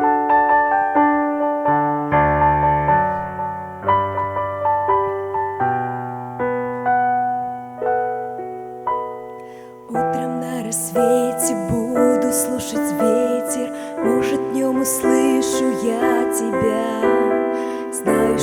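Instrumental song intro: a piano plays a slow, gentle melody alone. About ten seconds in, percussion with crisp high hits and a fuller backing join.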